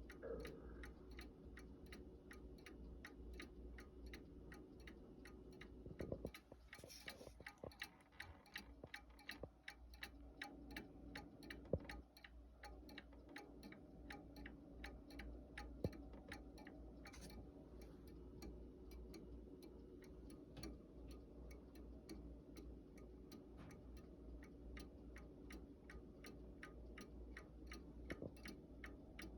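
Antique Seth Thomas four-rod chime clock ticking faintly and steadily, with a few isolated louder knocks, the sharpest about twelve seconds in.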